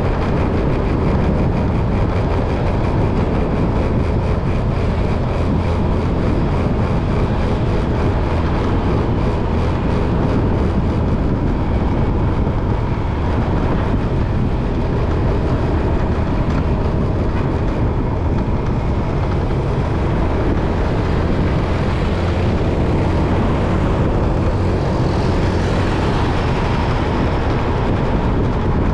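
Steady vehicle noise: a continuous deep engine-and-road rumble, with no sudden events.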